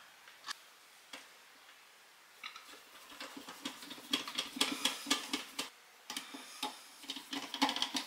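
Screwdriver driving a dimmer switch's mounting screws into a plastic electrical box: a few single clicks, then rapid runs of small clicks starting about two and a half seconds in, with a brief pause near six seconds.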